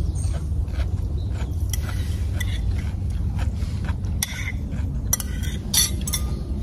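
Forks clinking and scraping on plates, a scattering of small clicks with the sharpest near the end, over a steady low rumble.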